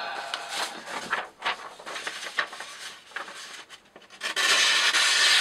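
Short rubbing and rustling handling noises, ending with about a second of loud, steady rasping hiss.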